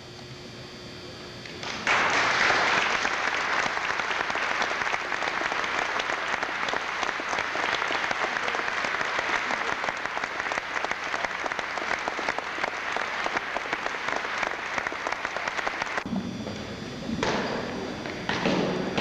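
Audience applauding: a dense patter of many hands clapping that starts about two seconds in, runs steadily, breaks off a few seconds before the end and then picks up again.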